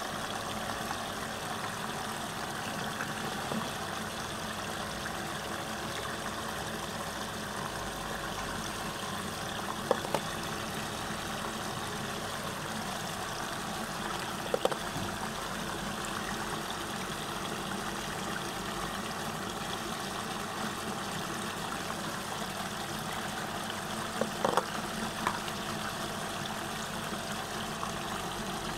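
Steady rushing and gurgling of water swirling down a whirlpool vortex, with a steady mechanical hum underneath. A few brief sharp sounds cut in: once about ten seconds in, once about fifteen, and a small cluster near twenty-five seconds.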